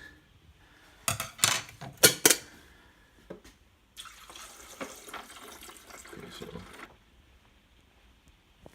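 A few loud clatters, then water pouring steadily for about three seconds.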